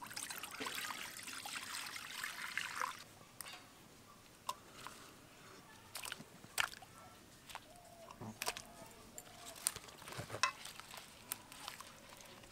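Water splashing and trickling for about the first three seconds as dragon fruits are rinsed of sand, then scattered light knocks and clicks.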